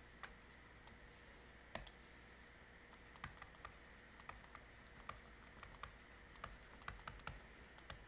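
Faint, irregular taps and clicks of a stylus on a tablet screen as a word is handwritten, over near silence. The taps come more often in the second half.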